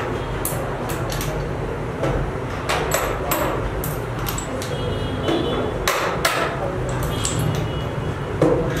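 Small metal parts clicking and knocking as pins, rings and nuts are fitted onto bolts by hand: a stream of irregular sharp clicks, several a second at times.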